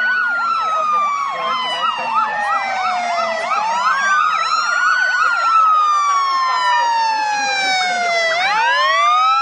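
Ambulance siren wailing in slow sweeps that rise and fall over several seconds each. For the first three seconds a second siren warbles fast over it, several times a second.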